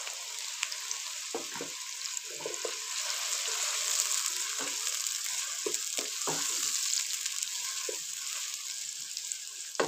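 Sliced onions sizzling in hot ghee in a pan, stirred with a wooden spatula that scrapes and knocks against the pan now and then.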